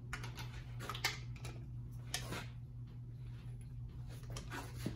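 Click-type torque wrench tightening cylinder head bolts to 105 ft-lb: a handful of sharp metallic clicks and ratchet sounds, the sharpest about a second in, over a steady low hum.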